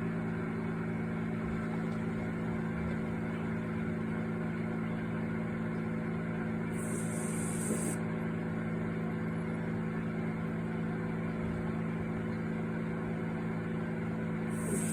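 Dishwasher running with a steady mechanical hum. A high hiss comes in for about a second, about seven seconds in and again near the end.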